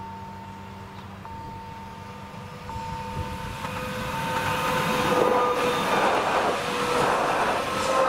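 Stadler-built Appenzeller Bahnen ABe 4/12 narrow-gauge electric railcar approaching and passing close by. Its wheels rumble on the rails, growing louder from about three seconds in, with a steady whine underneath.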